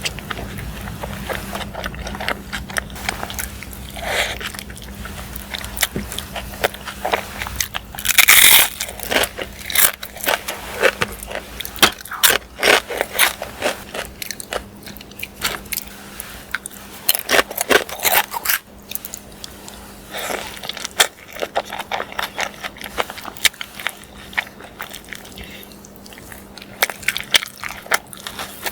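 Close-miked eating of a burrito: biting and chewing with many short wet crackles and smacks, and one longer, louder bite about eight seconds in. A faint steady hum runs underneath.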